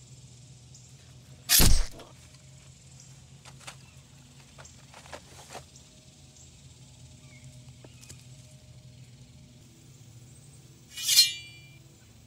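A sudden heavy thump about a second and a half in, a few faint clicks, then near the end a short metallic ringing swish, like a sword drawn from a sheath on the back.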